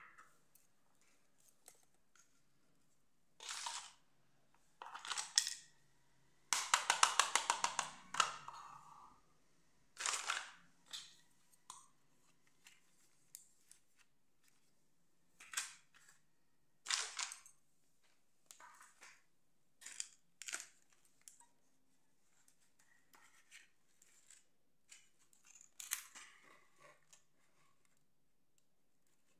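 Small plastic toys, dollhouse furniture and a toy makeup palette, handled, opened and set down: scattered clusters of clicks, taps and rattles with quiet gaps between. The longest, busiest run of rapid clicks comes about a quarter of the way in.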